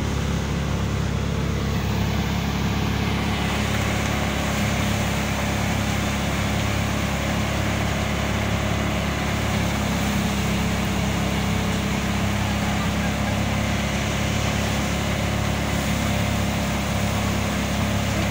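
Mechanical thresher running steadily, a loud continuous drone, as dried mustard plants are fed in to thresh out the seed.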